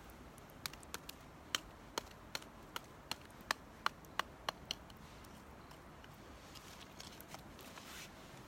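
Campfire crackling: a quick run of about a dozen sharp pops over roughly four seconds, then only a few faint ones.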